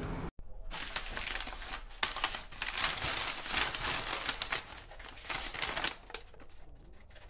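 Food wrapper crinkling and rustling as a baguette is unwrapped, easing off near the end.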